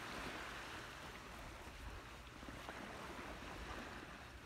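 Sea surf washing on the beach, a low steady rush.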